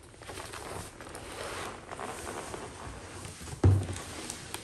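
Cardboard shipping box scraping and rustling as it is rolled over and lifted off the foam-packed speaker inside, with one heavy thud about three and a half seconds in.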